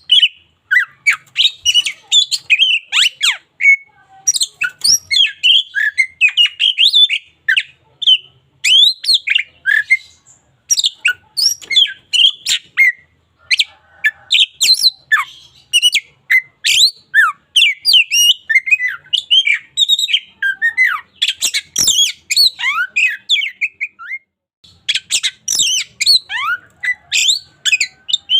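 Oriental magpie-robin (kacer) singing continuously: a fast, varied string of whistles, rising and falling sweeps and harsher notes, with a brief pause about three-quarters of the way through.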